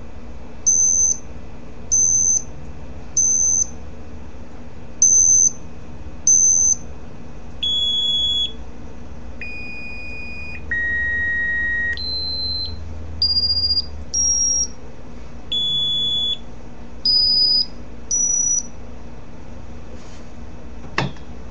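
Electronic tones from a smartphone speaker: a string of pure beeps, each about half a second to a second long. The first five are at the same high pitch; the rest step to lower and higher pitches. A sharp click comes about a second before the end.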